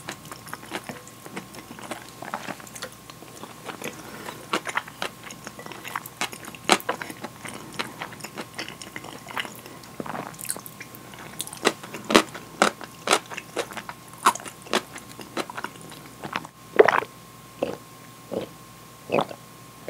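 Close-miked eating: a wooden spoon scraping a ceramic bowl, and chewing of curry rice with many wet mouth clicks. Near the end come several evenly spaced gulps of drink from a glass.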